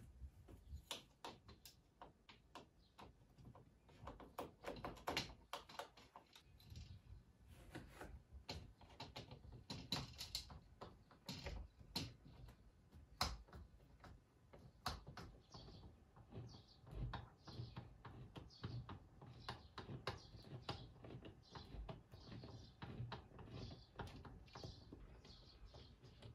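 Plastic runners and hooks clicking and rattling on a curtain rail as they are handled, in scattered light taps. In the second half come many short scraping sounds at a fairly even pace, like runners sliding along the rail.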